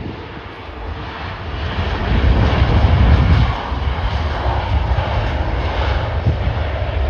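Jet airliner engines rumbling as a plane passes, swelling over the first two seconds and loudest around three seconds in, then staying loud.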